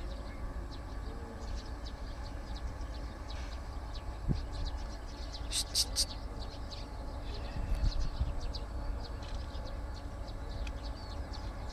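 Birds chirping over a steady low rumble, with a quick run of three high chirps about halfway through.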